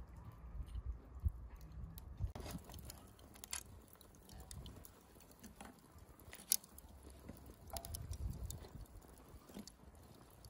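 Lumps of burning charcoal clinking and scraping against each other and the metal tongs as they are stacked in a steel grill: a scatter of irregular sharp clicks, the loudest about six and a half seconds in.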